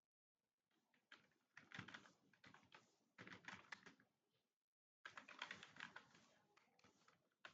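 Rapid typing on a computer keyboard: quick runs of keystrokes in bursts, broken by short pauses.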